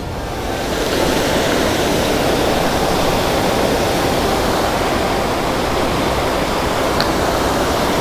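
Waterfall cascading in steps down sloping bare rock: a steady, loud rush of splashing water.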